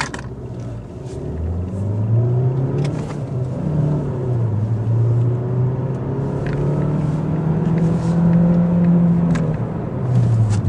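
Mazda 3 Skyactiv X 2.0-litre four-cylinder petrol engine heard from inside the cabin, accelerating hard. Its pitch climbs, dips once about four seconds in, then climbs again and drops near the end, in a run-up to about 85 km/h for a driving-dynamics exercise.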